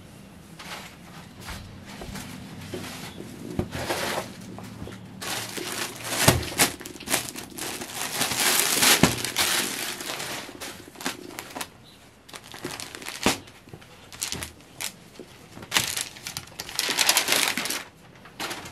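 Dress fabric, including a sheer organza dupatta, rustling and crinkling in irregular bursts as it is folded, stacked and spread out by hand. There are a few sharp knocks along the way.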